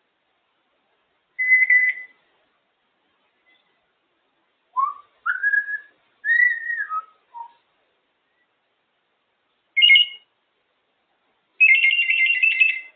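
African grey parrot whistling in separate phrases: a short whistle, then a run of gliding notes that rise and fall, a brief two-tone note, and a warbling two-tone whistle near the end.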